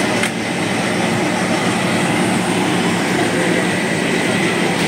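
Steady, loud engine rumble from emergency vehicles running at the scene, with a faint steady high whine throughout and a short click about a quarter second in.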